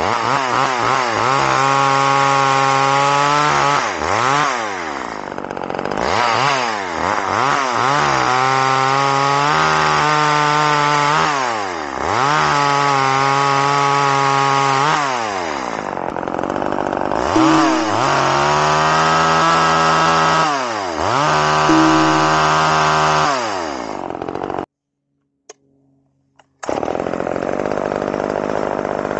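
Poulan Micro XXV two-stroke chainsaw making test cuts through dry, rock-hard locust. It is revved up, held at full throttle in the cut for a couple of seconds, then dropped back to idle, over and over. The sound breaks off for about two seconds near the end. The saw is freshly repaired, with a new oil pump check valve, and is cutting well.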